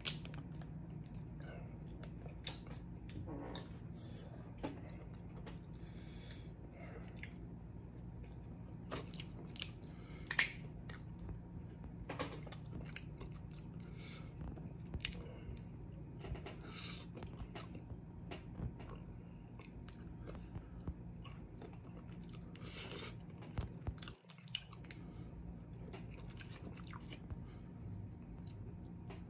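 A person eating a seafood boil of snow crab legs and shrimp in butter sauce, with chewing and biting and many short sharp cracks and clicks scattered through, over a steady low hum.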